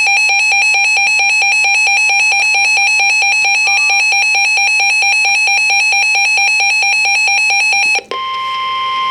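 Emergency Alert System two-tone attention signal from a weather radio broadcast, a loud steady pulsing alarm tone sounding a new warning. It cuts off about eight seconds in and gives way to a quieter single steady tone.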